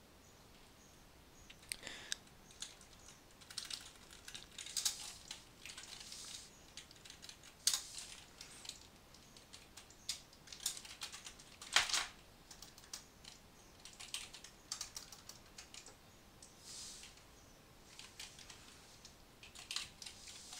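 Typing on a computer keyboard: irregular runs of key clicks broken by short pauses, with one louder key strike about twelve seconds in.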